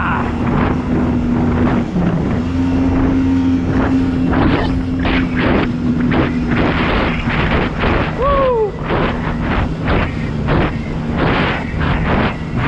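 Jet ski engine running at high speed with a steady hum that dips briefly about two seconds in, under heavy wind noise on the microphone and repeated thumps and splashing.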